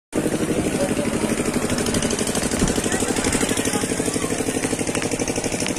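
An engine idling close by, with a steady rapid putter of about eight beats a second.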